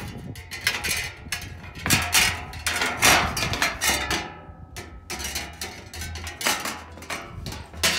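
Metal gazebo roof panels clanking and rattling against each other and the frame as one is handled and turned around: a fast, irregular run of metallic knocks with some ringing, loudest about three seconds in.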